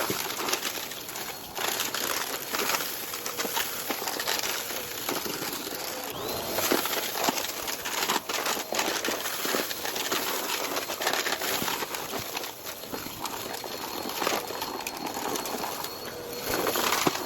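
Vacuum cleaner sucking up crunchy debris: a steady rush of air full of dense crackles and pops, with a faint high motor whine joining about six seconds in.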